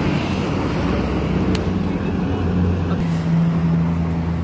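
Road traffic: a motor vehicle engine running steadily close by, its hum growing stronger about two and a half seconds in over a constant low rumble.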